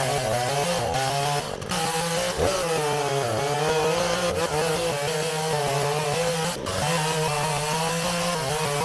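Chainsaw engine running under load while cutting wood with an old, dull chain; the engine note wavers up and down as it labours through the cut. The dull chain is burning the wood rather than cutting cleanly.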